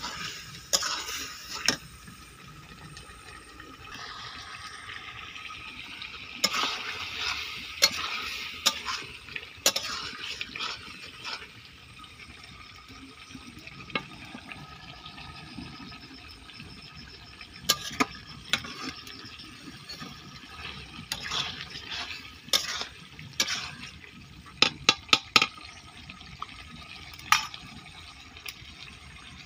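Chicken and potato curry simmering and bubbling in a steel kadai, with a spatula scraping and clinking against the pan now and then: scattered sharp clicks, several in quick succession near the end.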